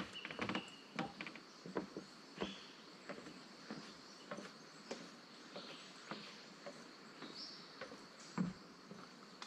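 Footsteps of a hiker walking at a steady pace along a forest track, with a few short bird chirps and a faint steady insect buzz behind them.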